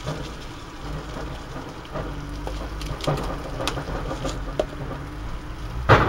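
Rice frying in a pan on a portable gas stove: a steady sizzle with scattered light ticks as crispy fried onions are shaken into the pan. A single sharp clack near the end.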